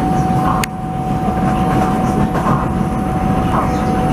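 Vienna U-Bahn train running at speed, heard from inside the carriage: a steady low rumble of wheels on rail, with a steady high whine held throughout and a single sharp click just under a second in.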